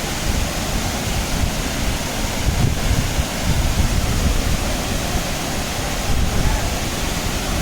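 Steady rush of a waterfall, with wind gusting on the microphone.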